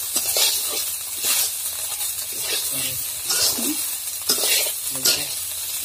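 Rice and lentils sizzling in hot oil in a wok, stirred with a metal spatula that scrapes the pan about once a second. This is the frying of the raw grain and spices for khichuri before water goes in.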